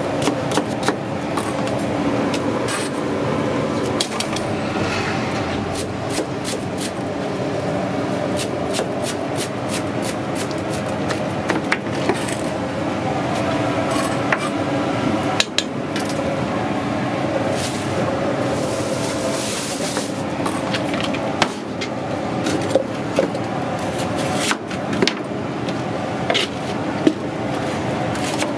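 Chef's knife chopping on a plastic cutting board: irregular sharp taps, some in quick runs, over steady background noise.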